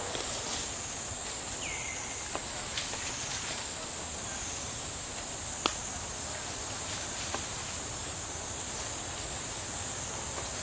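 Insects droning with a steady high-pitched hum. A few sharp clicks stand out, the loudest about five and a half seconds in, and there is a short falling chirp near the start.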